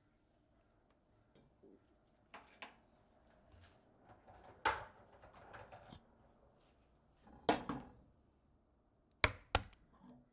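Eggs being broken: a series of sharp cracks of shell, one followed by a brief crackle of shell pulling apart, with two quick, loudest cracks near the end.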